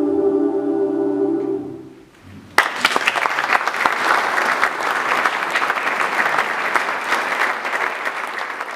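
A women's choir holds the last chord of the song, which dies away about two seconds in; after a short pause the audience's applause starts suddenly and keeps going.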